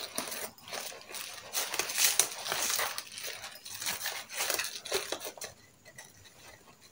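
Plastic packets crinkling and rustling as small items are pushed into a suitcase's mesh lid pocket. The handling noises are irregular and die down near the end.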